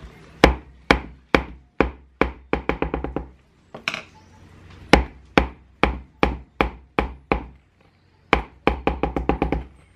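Metal hand-mixer beaters knocked repeatedly against the rim of a plastic mixing bowl to shake off thick cake batter. The sharp knocks come singly about every half second, with quick runs of several near the middle and near the end.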